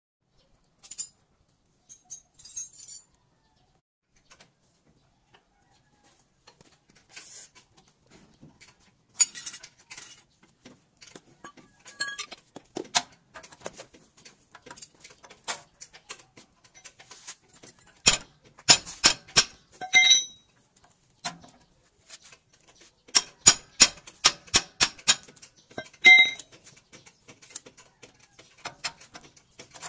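Metal tools and steel steering-linkage parts clinking and knocking against each other, scattered at first, then two runs of quick sharp strikes in the second half, some leaving a short metallic ring.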